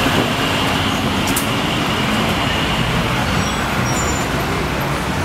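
Steady street traffic noise with a motor vehicle's engine running close by, with a faint high whine over the first couple of seconds.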